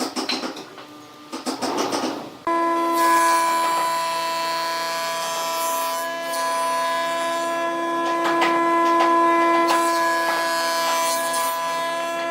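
Wood lathe running with a steady motor whine while a turning tool scrapes and cuts the spinning wood. Before this, rhythmic rubbing strokes on wood are cut off abruptly about two and a half seconds in.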